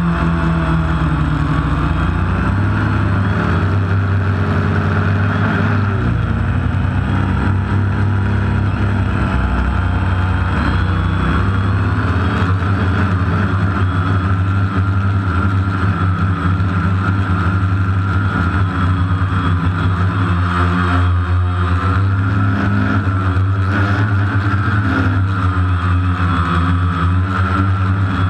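Multicopter's electric motors and propellers buzzing steadily in flight, heard from the camera on board. The pitch wavers up and down as the motors change speed, most clearly near the start and again over the last several seconds.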